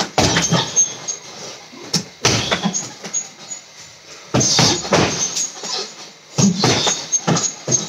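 Gloved punches landing on a heavy bag in quick combinations: bursts of several hits with short pauses between, about every two seconds.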